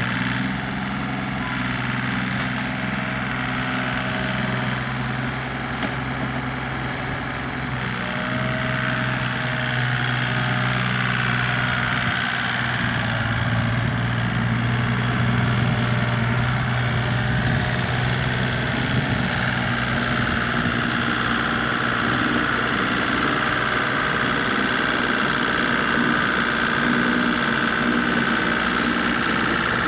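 Small Kubota diesel tractor engine running steadily under load as it drags a harrow through a rice paddy, growing a little louder about ten seconds in.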